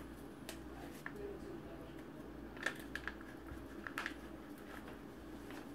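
Quiet room with a steady low hum and a few scattered small clicks and taps of handling, the loudest a little under three seconds in and again at about four seconds.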